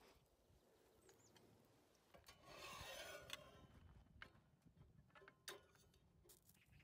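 Near silence, with a few faint light clicks of steel tongs against a stainless steel tray.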